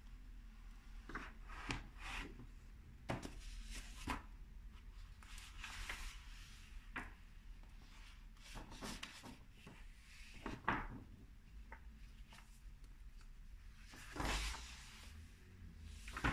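Sheets of a folded paper artist book rustling and rubbing as it is handled, in scattered short strokes, with a couple of louder dull bumps near the end.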